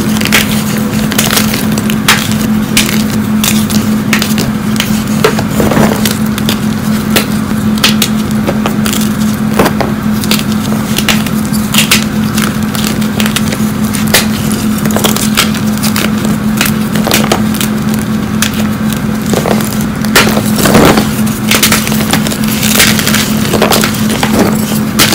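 Blocks and chunks of fresh gym chalk being squeezed and crumbled by hand: a dense, irregular crunching and crackling of hard chalk pieces breaking and grinding against each other, with a steady low hum underneath.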